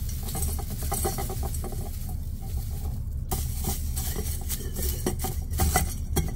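Brittle dehydrated cabbage shreds rustling and crackling against a stainless steel canning funnel as they are poured and pushed through by hand. The crackling comes as many quick dry clicks, with a short lull about three seconds in, over a steady low hum.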